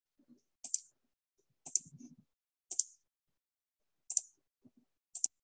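Computer mouse clicking: single sharp clicks about a second apart, ending in a quick double click.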